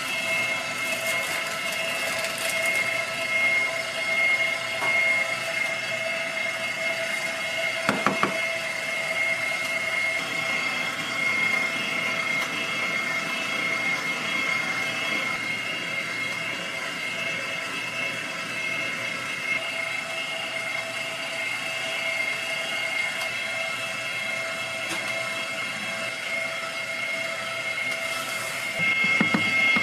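Steady machine hum with a high, even whine, from kitchen machinery running in the background, and one short knock about eight seconds in.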